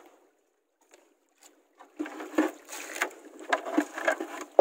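Near silence for about two seconds, then water sloshing against a small boat with scattered knocks.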